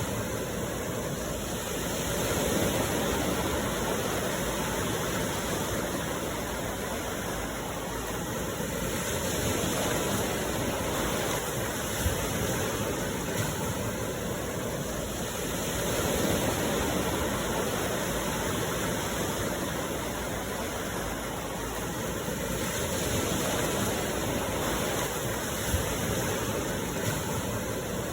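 Sea waves washing on the shore: a steady rush of surf that swells and eases every six or seven seconds.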